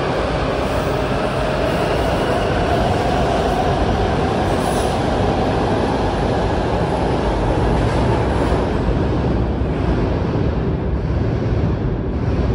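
WMATA 7000-series Metro train pulling out of an underground station: a loud, steady rumble of wheels on rail with a faint rising whine, echoing under the vaulted ceiling. It begins to fade near the end as the last car enters the tunnel.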